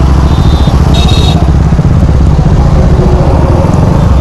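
KTM Duke 250's single-cylinder engine running at low revs among other motorcycles in slow group traffic: a loud, steady, throbbing rumble.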